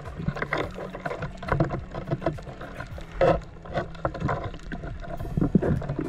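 Muffled underwater knocks and crackles heard through a camera housing as a pole spear is worked and wrenched in a coral crevice to pull out a speared crab. The knocks come irregularly, with the loudest about three seconds in and another near the end.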